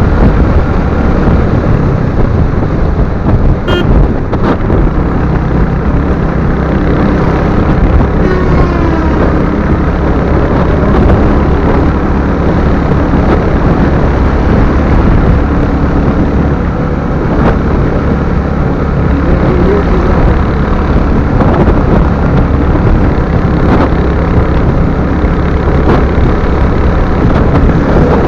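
Royal Enfield Hunter 350's single-cylinder engine running steadily under way on the road, under continuous road and wind noise.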